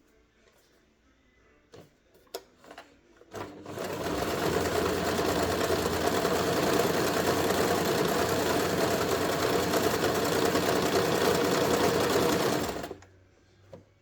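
Janome RE1712 sewing machine running at a steady speed, stitching for about nine seconds, then stopping. A few light clicks come just before it starts.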